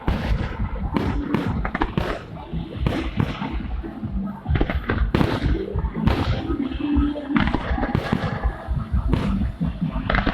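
New Year fireworks display: a dense, continuous run of bangs and crackles from shells bursting overhead, several a second.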